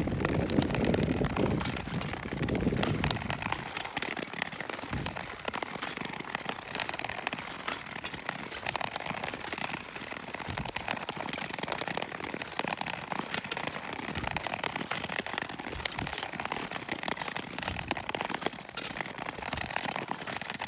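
Ice skate blades gliding and scraping over rough natural lake ice, a steady crackly hiss full of small clicks. There is a low wind rumble over the microphone in the first few seconds.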